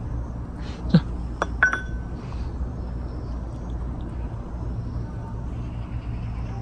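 Three light clinks of a ceramic cat food bowl about a second in, the last with a short ringing tone, over a steady low rumble.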